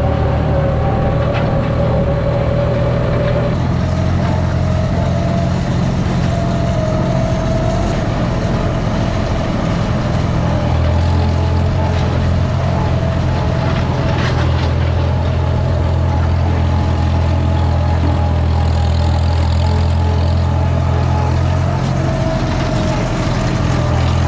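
Tractor engine running steadily, with a steady whine above the low engine note.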